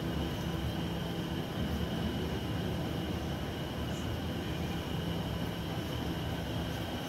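Steady low mechanical hum with a thin, high steady whine above it, unchanging throughout.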